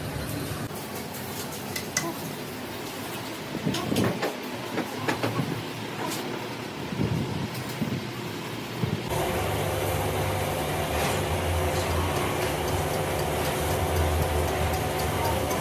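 Metalworking in a workshop: scattered light metal clicks and taps. About nine seconds in they give way abruptly to a steady machine hum with a constant pitch.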